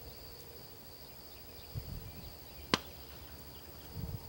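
A single sharp crack about two and a half seconds in, the distant shot that signals a retriever mark, over a steady high insect drone.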